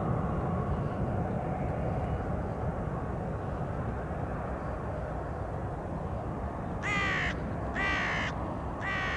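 The steady, slowly fading rumble of a receding Pilatus PC-24 twin-turbofan business jet, with a faint whine early on. Near the end a crow caws three times, about a second apart, louder than the jet.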